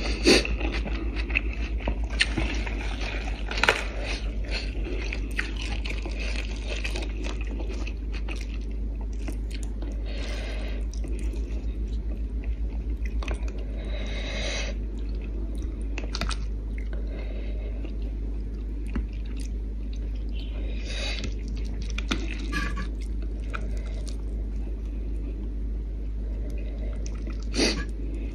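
Close-up eating sounds: chewing, with scattered clicks and brief scrapes as fingers pick fish off a plate, over a steady low hum.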